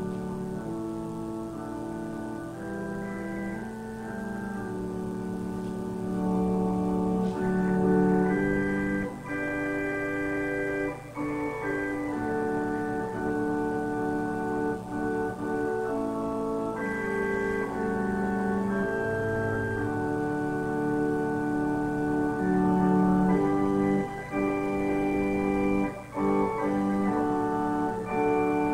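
Organ music: slow, sustained chords whose notes change every second or two, with a few short breaks between phrases.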